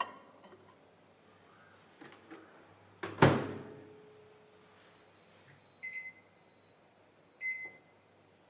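Microwave oven in use: a light clink as the dish goes in, then the door shut with a loud clunk about three seconds in, then two short keypad beeps near the end as the heating time is set.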